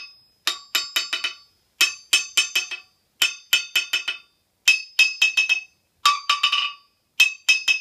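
A claw hammer's head is dropped about six times onto a steel anvil face. Each drop bounces back in a quick run of four or five ringing clinks that come faster as the bounces shrink. This is an anvil rebound and ring test: the clear ring and lively bounce mark a good anvil, not a dull cast-iron thunk.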